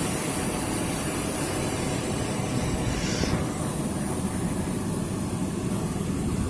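Steady roar of a tall waterfall, an even low rumble of falling water with its higher hiss dropping away about three seconds in.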